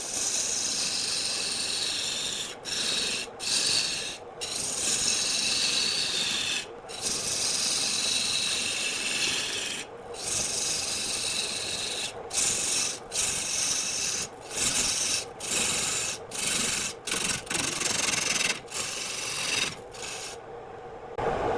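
Wood spinning on a lathe being worked by a turning tool or abrasive: a steady hissing rasp broken by many short gaps, with the hiss dropping away for about a second near the end.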